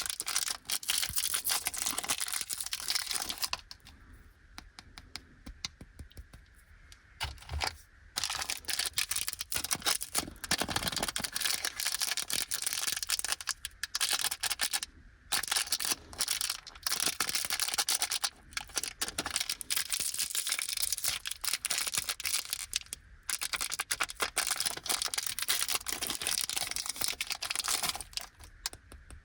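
Plastic snack wrapper of a Fujiya Anpanman chocolate packet being crinkled and torn open by hand. The crackling comes in long stretches with a few short pauses.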